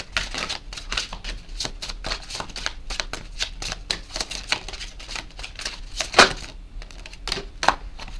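Oracle cards being shuffled by hand: a quick, uneven run of crisp card flicks and slaps, with two louder snaps in the second half.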